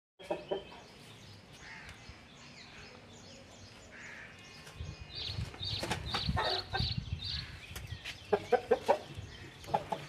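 Chicken clucking in short runs of quick notes, the loudest run of about five clucks near the end. Higher repeated chirping notes come in the middle.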